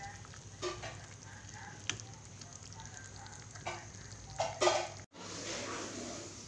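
Metal ladle stirring a pot of coconut-milk vegetable and tofu curry in an aluminium wok, with a few sharp scrapes and knocks against the pan over a steady low hum. The sound cuts off suddenly about five seconds in.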